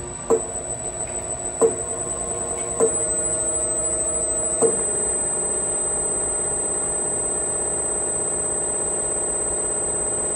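Servo motors on a Siemens Sinamics S120 drive running at a commanded 1,000 RPM: a steady electric hum with a high whine above it. Four sharp clicks come in the first five seconds, each followed by a step up in the hum, which then holds steady.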